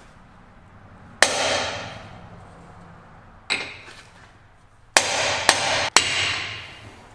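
Five hammer blows on a bearing-race driver, seating a bearing race into the rear AAM 11.5 differential housing; each strike rings out metallically, one near the start, one in the middle and three close together near the end.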